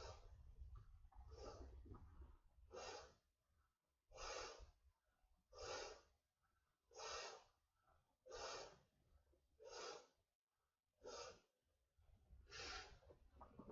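A man's breaths as he blows up an inflatable raft by mouth: a faint, regular series of puffs, about one every second and a half.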